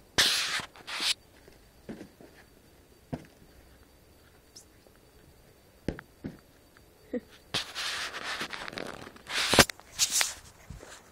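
Footsteps on grass and a border collie puppy tussling with a football: scattered sharp knocks and bursts of rustling, loudest near the end.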